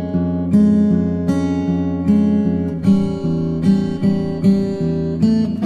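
Background music: acoustic guitar strumming chords, with a fresh strum about every 0.8 seconds.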